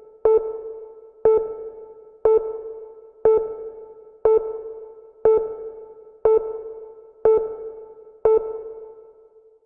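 A single synthesized bell-like electronic note struck about once a second, nine times, each strike sharp and dying away before the next.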